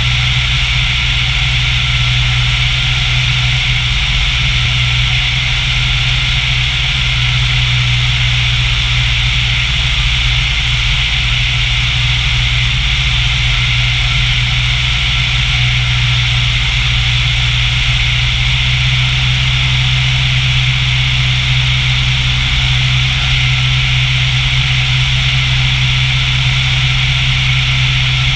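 Single-engine light aircraft's piston engine and propeller running steadily in flight: a constant low drone with a steady hiss over it.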